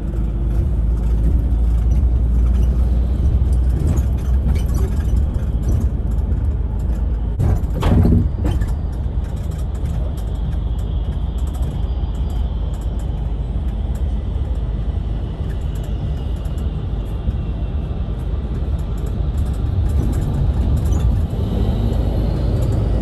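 Steady low rumble inside a moving vehicle, with a brief louder swell about eight seconds in.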